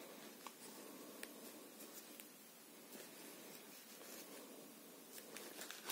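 Near silence with faint rustling of fabric and a few light ticks as hands handle a knit glove-mitten and its fold-over finger flap.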